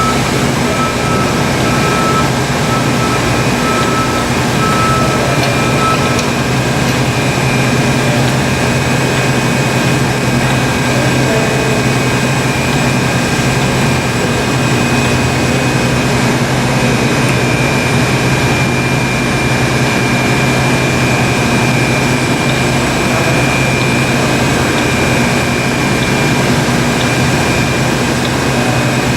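American 40-inch heavy-duty engine lathe running under power, its 25 HP three-phase motor and gearing giving a steady hum with a few constant whining tones. One higher tone stops about six seconds in.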